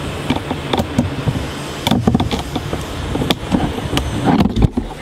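Handling noise: rustling and scattered light knocks and clicks as a braided paracord whip is moved about on a workbench.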